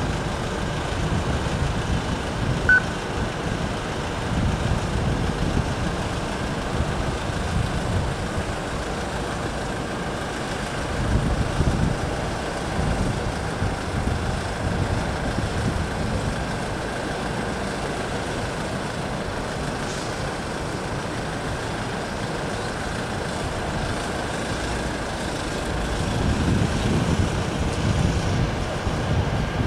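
Small flatbed truck with a trailer hitched behind it, its engine running at low speed as it manoeuvres, heard as a steady low rumble that swells about ten seconds in and again near the end.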